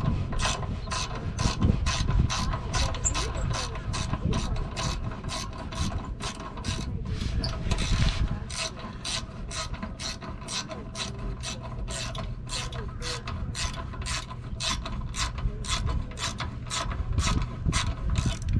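A ratchet clicking at a steady pace, about two to three clicks a second, as a fastener is worked while a rear RV stabilizer jack is fitted.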